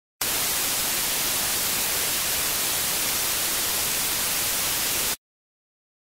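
Television static sound effect: a steady, even hiss of white noise, brightest in the high end, that cuts off suddenly about five seconds in.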